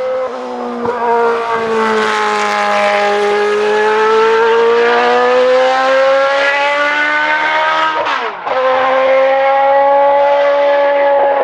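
Benetton B190's V8 Formula One engine running at high revs on track, its note sagging and rising slowly, then dropping sharply for about half a second about eight seconds in before picking up again.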